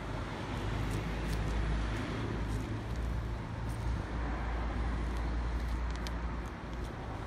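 Honda FG200 mini tiller's small 1.9 hp four-stroke engine running steadily with an even low hum.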